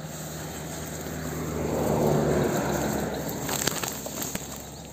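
Footsteps through tall grass and weeds, the stalks rustling and brushing against the legs and camera, louder in the middle, with a few crackles of snapping stems near the end.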